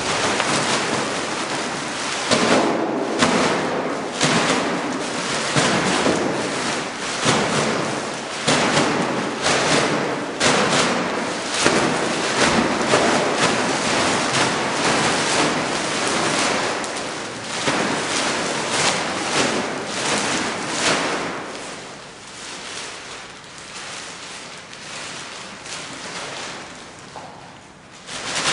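A plastic bag swung and slapped again and again against paper on the floor, its plastic crinkling and rustling, with dull thumps where it lands. The strikes thin out over the last few seconds as the bag is handled more gently.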